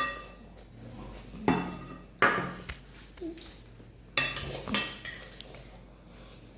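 Cutlery clinking and scraping against plates during eating, with about five sharp clinks; the first rings briefly.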